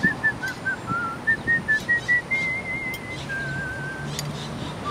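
A person whistling a tune: a run of short notes climbing in pitch, then a long note held with a wavering trill that steps down to a lower wavering note.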